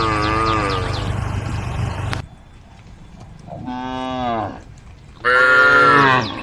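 Cows mooing: three drawn-out calls that rise and fall in pitch. The last, about five seconds in, is the loudest. Faint rhythmic high chirping lies under the first call.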